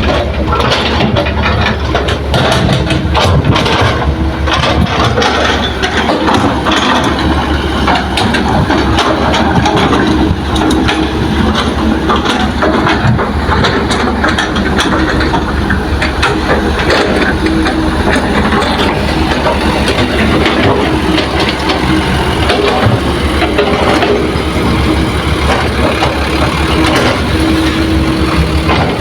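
Heavy diesel earthmoving machinery running steadily, with frequent small knocks and clatter throughout.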